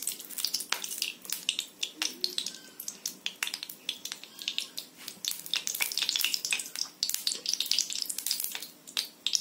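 Ghee melting into hot oil in a kadai, sizzling and crackling with many irregular sharp pops as the oil heats.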